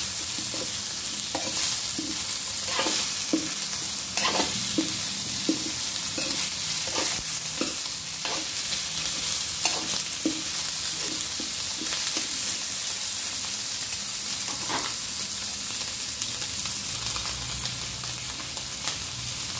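Chicken pieces and chicken giblets sizzling in hot oil in a wok, stir-fried with a spatula that scrapes and knocks against the pan. The scraping strokes come irregularly over a steady sizzle and thin out near the end.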